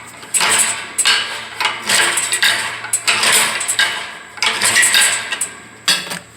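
Repeated metallic clanking and scraping: a steel pry bar being worked against a two-stage air compressor's pump to turn it over by hand, because the compressor will not start on its own.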